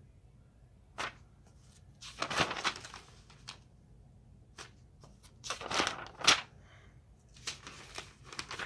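Paper rustling as pages of a book are leafed through: several irregular crinkly rustles with short pauses between them.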